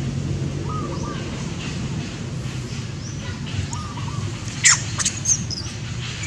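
Outdoor ambience of faint bird chirps over steady low background noise, with two or three sharp, high squeaks or clicks a little past the middle.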